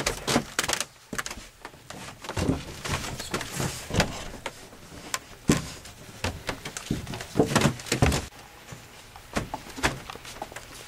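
Irregular knocks and thumps with rustling, from people moving about and handling things on a wooden structure.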